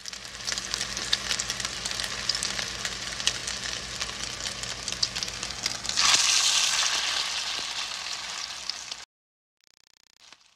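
Food sizzling on a hot grill, a steady crackling hiss with frequent sharp pops. About six seconds in a louder sizzle swells up and slowly dies down, then the sound cuts off suddenly about nine seconds in.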